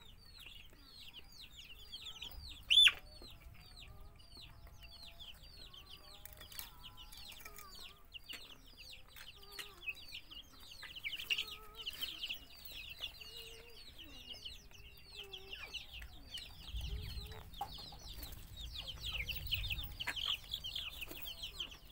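Chickens peeping: a continuous flurry of short, high calls that each fall in pitch, with one loud, sharp call about three seconds in.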